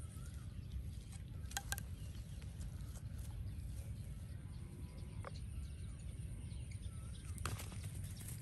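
Steady low rumble of wind on the microphone, with a few faint short chirps and a couple of sharp clicks, about one and a half seconds in and again near the end.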